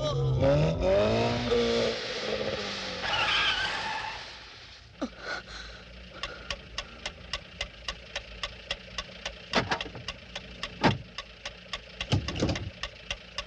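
Car tyres squealing and an engine revving for the first few seconds. It dies down into a steady mechanical ticking, about two ticks a second, with a couple of louder knocks among the ticks.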